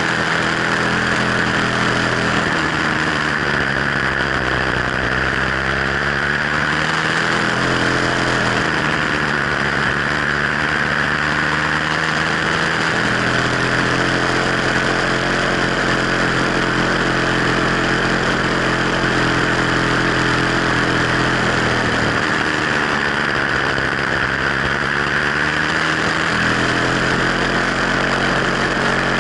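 Sky Hawk 66cc two-stroke motorized-bicycle engine running while riding, its engine speed rising and falling a few times.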